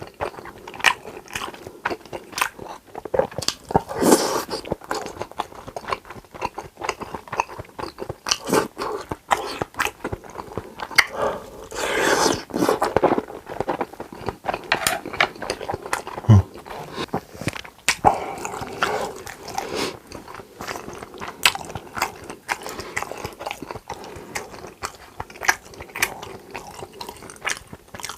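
Close-miked eating sounds: biting and chewing with many short crisp crunches and wet mouth noises, going on without a break.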